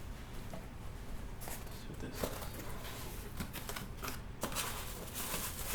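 Packaging and plastic aquarium lid parts being handled: irregular rustling and scraping, with a few light clicks and knocks.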